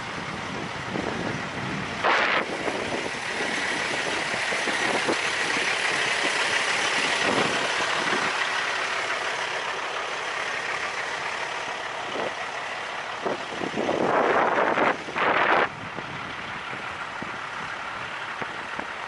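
Semi trucks running in a truck stop lot, heard as a steady rush with wind buffeting the microphone. A brief louder rush comes about two seconds in and a longer one near the end.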